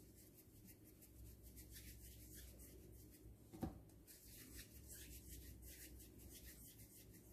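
Faint rubbing of palms rolling soft dough into small balls, with one short knock about three and a half seconds in.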